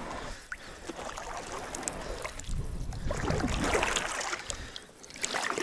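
Oars splashing and water trickling as an inflatable rubber boat is rowed across shallow floodwater, the splashing swelling and fading a few times.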